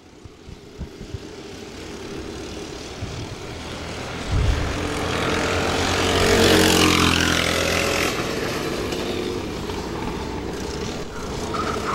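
Several racing kart engines running hard as a group of karts approaches and passes, swelling to loudest about six to seven seconds in, then easing off.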